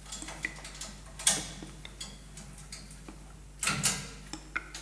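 Scattered small metallic clicks and rattles of a small barred metal locker door being worked open, with a sharp click about a second in and a louder cluster of clicks near the end, over a low steady hum.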